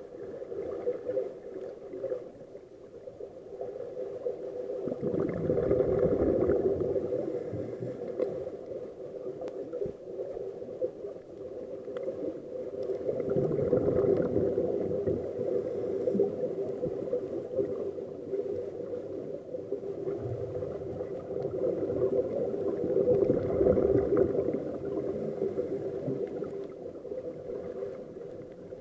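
Underwater sea sound picked up by a submerged camera: a steady hum under a gurgling wash of water that swells louder three times, roughly every eight to nine seconds.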